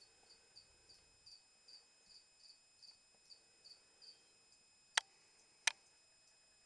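A cricket chirping, short high chirps about three a second, stopping about four seconds in; then two sharp clicks close together, the loudest sounds.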